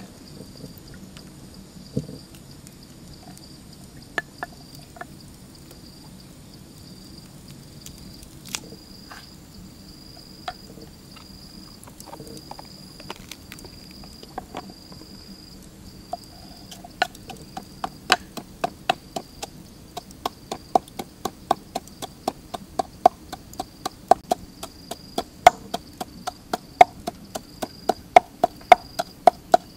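Knife chopping on a wooden board: a few scattered taps, then steady chopping at about two strokes a second from about halfway in. A faint insect chirp repeats about once a second in the background.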